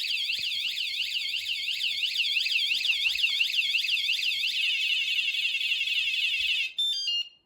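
Wsdcam 113 dB motorcycle/bike vibration alarm going off after the bike is moved: a loud, rapidly warbling siren at about four sweeps a second. It switches to a faster warble past the halfway point and cuts off suddenly about seven seconds in, followed by a few short beeps falling in pitch.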